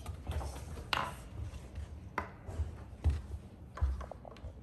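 Irregular footsteps from a child walking in rubber rain boots, with a few sharp taps and knocks about a second apart.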